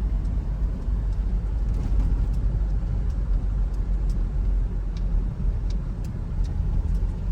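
Car on the move: a steady low rumble of engine and road noise, with a few faint ticks over it.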